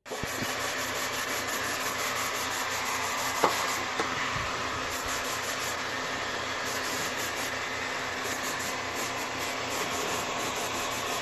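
Heat gun running: a steady blowing rush with a low motor hum underneath, broken by two sharp clicks about three and a half and four seconds in. It is drying Angelus matte finish sprayed onto a glossy leather sneaker.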